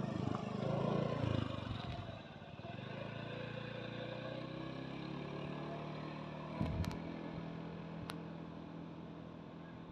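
A motor scooter passes close by, loudest in the first two seconds, and then an engine keeps running steadily. A few sharp clicks come about two-thirds of the way in.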